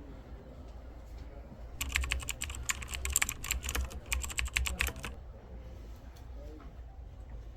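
A rapid, irregular run of sharp clicks and taps lasting about three seconds, starting about two seconds in, over a steady low background rumble.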